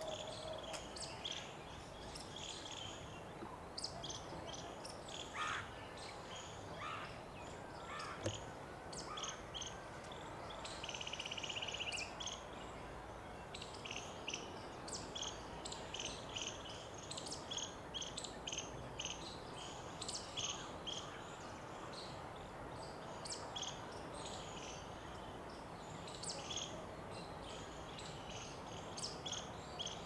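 Small birds chirping again and again in short high notes, with a brief buzzing trill about eleven seconds in.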